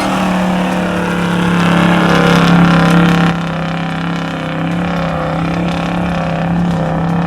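A 4x4's engine held at high, steady revs under load as it charges up a steep dirt hill climb on momentum. It eases slightly a little over three seconds in.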